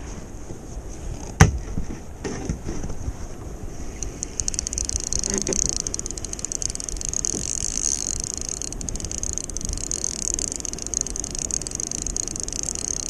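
Fishing reel ticking rapidly and continuously from about four seconds in, while a hooked fish bends the rod. Under it a low rush of wind and water, with a single knock about a second and a half in.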